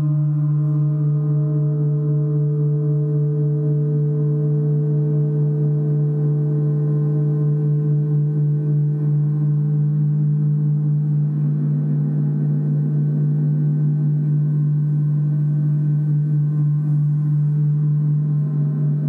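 Gongs ringing in one continuous wash: a deep, steady hum with many higher tones held above it, gently pulsing in loudness, with no single strike standing out.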